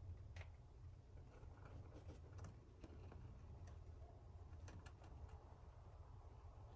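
Near silence over a low hum, with faint scattered clicks and ticks from a small fancy mouse taking and nibbling chia sprouts.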